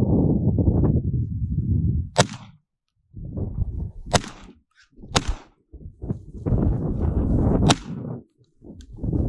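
Four sharp gunshots from a boar hunt, spaced one to two and a half seconds apart, heard over a low rumbling noise that cuts in and out.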